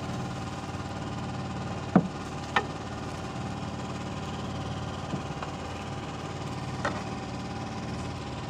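An engine running steadily on a fishing boat, with two sharp knocks about two seconds in and a fainter one near seven seconds.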